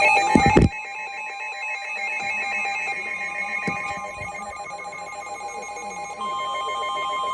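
Emergency Alert System tornado-warning alert tones. A loud burst comes right at the start, then a repeating pattern of electronic tones, and a steady single alert tone begins about six seconds in.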